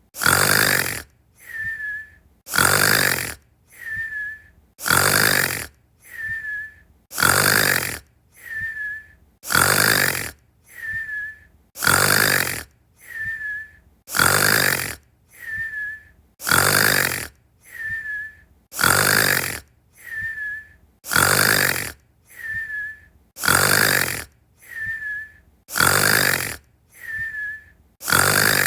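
Cartoon-style snoring on an even loop, about every two and a half seconds: a loud snore, then a softer breath out with a short high whistle.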